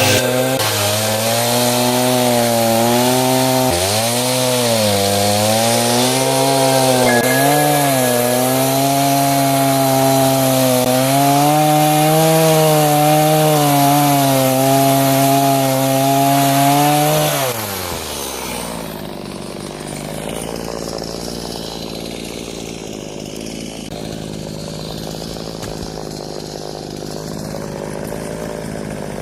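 Two-stroke chainsaw running at high revs, its pitch dipping and recovering again and again as it cuts wood. About 17 seconds in the engine drops to idle and runs on more quietly.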